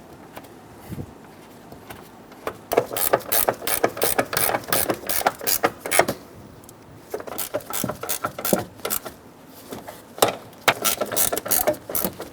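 Ratchet wrench tightening 12mm door hinge bolts, its pawl clicking rapidly in three runs of strokes with short pauses between them.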